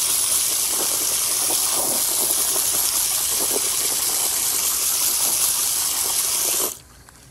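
Hose spraying a jet of water into a plastic tub of water onto grill grates: a steady rushing splash that cuts off suddenly near the end.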